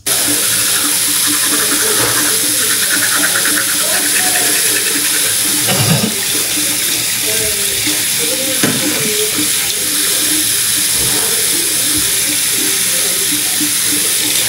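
Bathroom sink tap running steadily, the water coming on abruptly and splashing into the basin, with a couple of short knocks midway.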